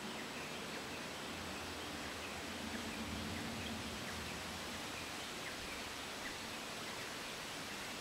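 Steady outdoor background hiss, with faint, short, high chirps scattered through it and a faint low hum that swells a little about two to three seconds in. The preening bird itself makes no audible sound.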